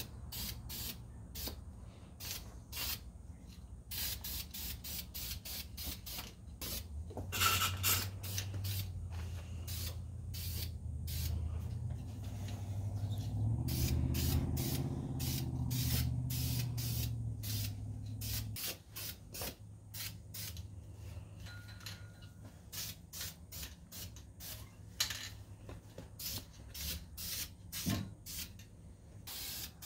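Rattle can of black enamel spray paint sprayed in many short hissing bursts with brief pauses between. A low hum comes in about four seconds in, swells, and cuts off suddenly about eighteen seconds in.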